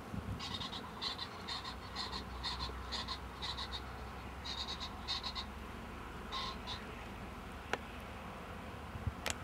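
An unseen animal giving short, high calls about twice a second, which stop after about five seconds and come back as a single pair. Two sharp clicks near the end, the second the loudest sound.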